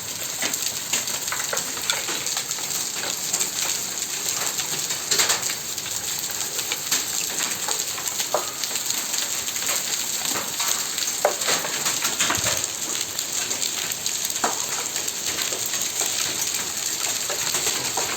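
Rain and hail falling: a dense, steady hiss of rain with scattered sharp ticks and taps of hailstones striking, a few of them louder.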